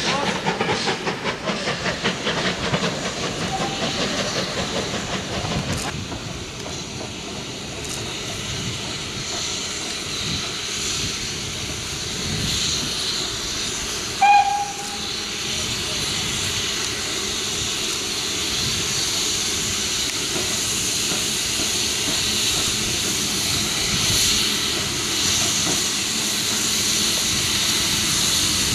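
Train wheels clatter rhythmically over the rail joints as coaches roll away for the first few seconds. A steady steam hiss from an approaching steam locomotive then builds, with one short, sharp whistle blast about halfway through.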